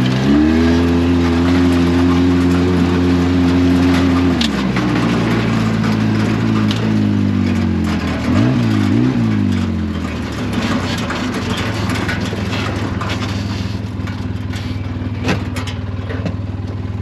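Polaris RZR XP side-by-side's engine running under way. Its pitch climbs in the first second and holds high, drops about four seconds in, swings up and down twice around eight to nine seconds, then settles lower and steady, with scattered knocks and rattles throughout.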